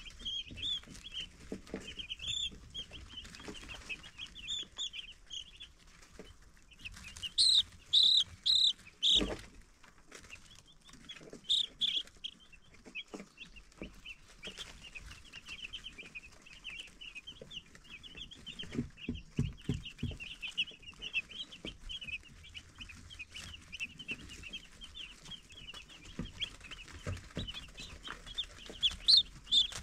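Baby chicks peeping in a steady stream of short, high chirps, with a burst of four loud peeps about seven to nine seconds in. A sharp knock comes just after nine seconds, and a few soft low thumps around nineteen to twenty seconds in.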